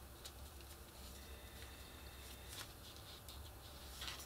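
Faint rustling and light scrapes of cardstock pages being turned in a handmade paper mini album, a few brief scratchy sounds with the strongest near the end, over a steady low hum.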